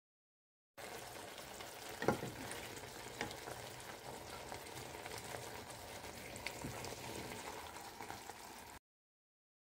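Spinach and sardines in tomato broth simmering in a pan, with a wooden spatula stirring and knocking against the pan a few times, the loudest knock about two seconds in. The sound starts about a second in and cuts off suddenly near the end.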